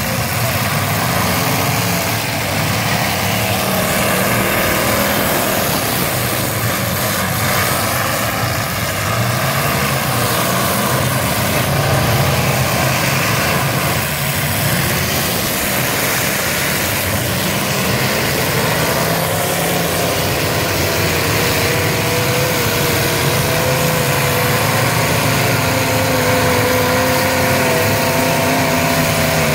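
Several demolition derby cars' engines running and revving together, a loud continuous din. From about two-thirds of the way through, a higher engine note wavers above the rest.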